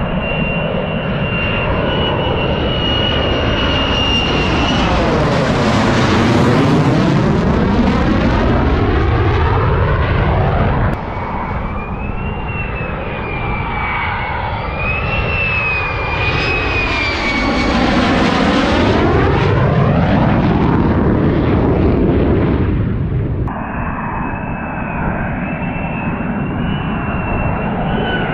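Fighter jets on final approach with gear down, passing low overhead: a high, steady jet-engine whine swells into a loud rushing sound as each pass comes over, then fades, twice. The sound changes abruptly about eleven seconds in and again near twenty-three seconds, at edits between passes.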